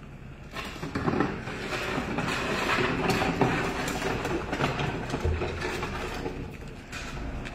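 Garbage truck working: engine running with a dense mechanical clattering and rattling that starts about half a second in.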